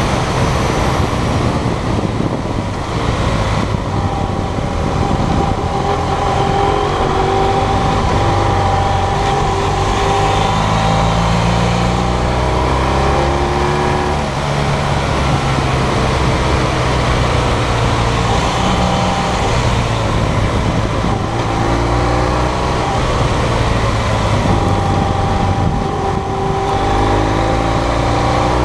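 BMW GS motorcycle's twin-cylinder engine running at road speed, its pitch rising and falling a few times with throttle and gear changes, under a steady rush of wind noise on the bike-mounted microphone.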